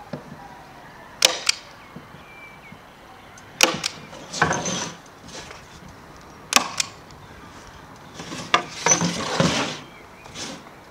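Hand-held manual staple gun firing staples into the corner joints of a pine stretcher-bar frame. It makes four sharp snaps a couple of seconds apart, two of them with a quick second click. Between the snaps the wooden frame is shifted about on the table with a scraping rustle.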